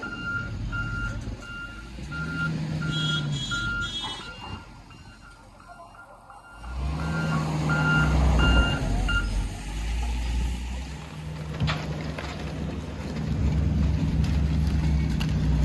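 Heavy equipment's backup alarm beeping about twice a second over a running engine; the beeping stops for a few seconds midway, then resumes as the engine revs up louder.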